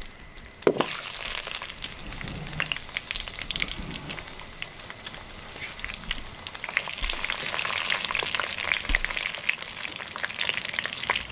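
Whole garlic bulbs frying in hot oil in an iron kadai over a wood fire, with steady sizzling and crackling that grows denser in the second half. A wooden spatula stirs the pan, and there is one sharp knock about a second in.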